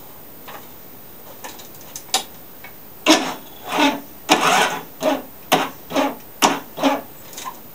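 Electric starter on a Craftsman walk-behind mower turning the engine over in about eight short bursts with a squeal. The spark plug is disconnected, so the engine cranks without firing, and the owner thinks the battery may be low. A few faint clicks come before the cranking starts.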